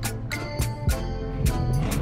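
Background music with a steady drum beat and sustained instrument notes.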